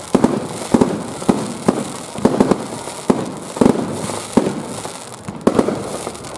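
Fireworks display: aerial shells bursting in quick succession, a dozen or so sharp bangs at roughly two a second, over a steady high hiss.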